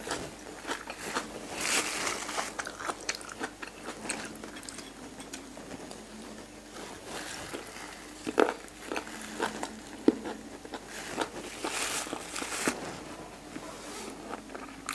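Chewing of soy-braised pig ear, the cartilage crunching in irregular bites with wet mouth clicks.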